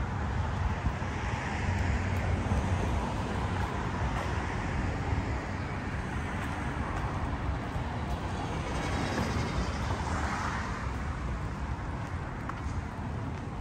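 City street traffic: cars passing with a steady low rumble, swelling as vehicles go by about two seconds in and again about ten seconds in.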